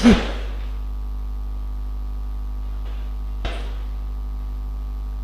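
Steady low electrical hum, with a brief scrap of voice at the very start and one faint knock about three and a half seconds in.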